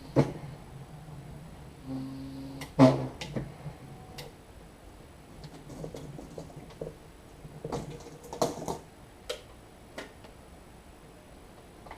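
Mechanical clicks and knocks from a home-built mechanical ventilator's mechanism. Near the start a short motor hum ends in a click, and a second hum about 2 s in ends in a loud clack. Scattered clicks and knocks follow, bunched together around 8 to 9 seconds in.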